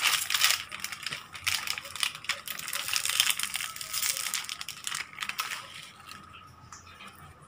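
Crinkling and crackling of a foil-lined plastic snack-donut wrapper as it is torn open and handled. It dies away after about five and a half seconds.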